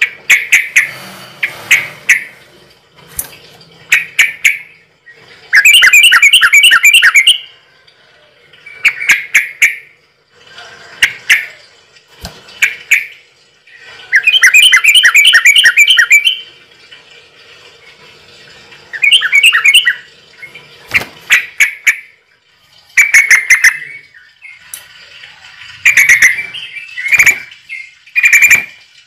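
A bird calling loudly and repeatedly: short chirps in clusters, with two long, fast trills about six and fifteen seconds in.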